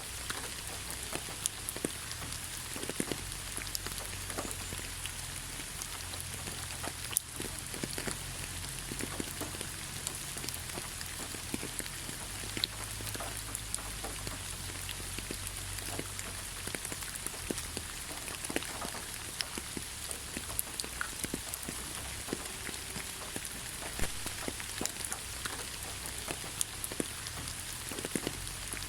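Steady rain falling, with many individual drops ticking sharply over an even hiss and a low rumble underneath.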